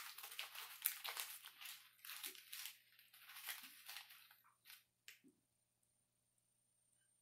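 Paper dollar bills crinkling and rustling as a capuchin monkey rolls and crumples them in its hands. The crinkling thins out and stops about five seconds in.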